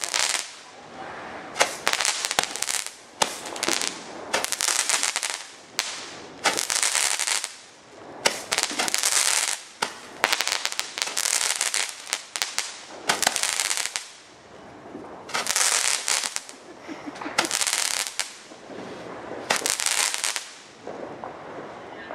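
Fireworks going off in rapid succession: about fifteen sharp bangs, each followed by a short crackling burst, roughly one a second, stopping near the end.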